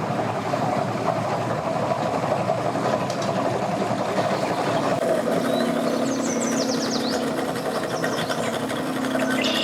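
Outboard engines of a big Pro-Line boat running as it works toward the dock, with a fast, even engine rhythm. A steady low hum joins about halfway through.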